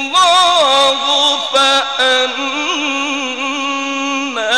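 A man reciting the Quran in the melodic mujawwad style, drawing out a long phrase with wavering ornamental turns, dipping in pitch near the end.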